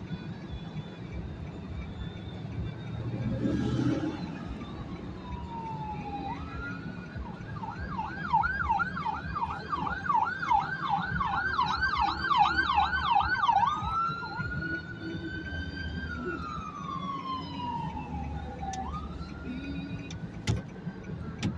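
Ambulance siren heard from inside a car cabin: a slow rising and falling wail, switching to a fast yelp of about three cycles a second for some six seconds, then back to the slow wail, over the car's low running hum.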